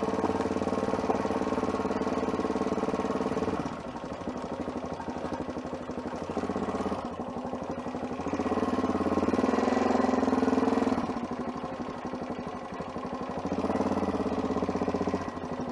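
Adventure motorcycle engine working under load on a muddy, rutted track, the throttle opening and closing. It runs steadily, drops back about four seconds in, then pulls harder again through the middle and near the end.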